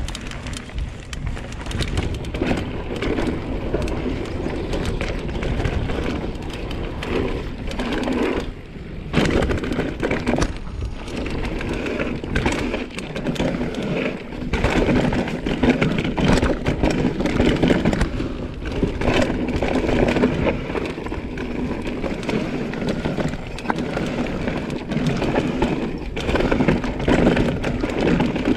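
Enduro mountain bike (Propain Tyee) ridden fast down a dry, dusty dirt trail: steady rumble of tyres over dirt, roots and stones, broken by frequent sharp clacks and rattles from the bike's chain and frame over the bumps.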